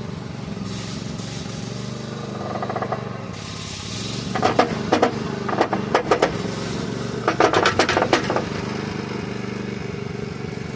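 Small backhoe engine running steadily. From about four seconds in there are two bursts of loud metallic creaking and clanking, as the pickup truck's crumpled front end is pulled.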